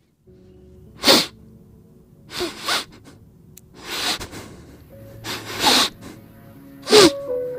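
A stray puppy gives a series of about six short, sharp cries, roughly one a second. Faint background music plays under them.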